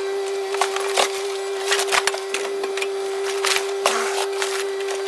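Kubota KX057 mini excavator running with a steady whine while its bucket and thumb break and drag fiberglass boat wreckage, giving repeated sharp cracks and snaps.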